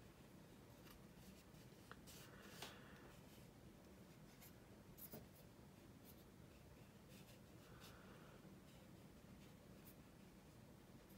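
Near silence with faint, scattered clicks and soft rubbing as plastic model fuselage halves, held together with masking tape, are handled and turned over.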